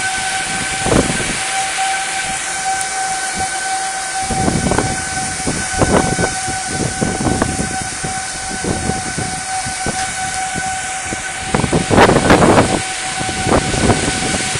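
Tornado winds of about 80 mph gusting against the house in repeated surges, the strongest about twelve seconds in, over a steady high whistling tone.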